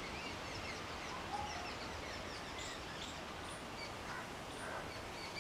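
Outdoor ambience: many short bird chirps and calls scattered over a steady background hiss.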